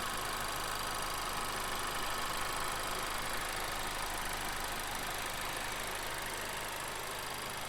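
2019 Honda Civic Type R's 2.0-liter turbocharged four-cylinder engine idling steadily.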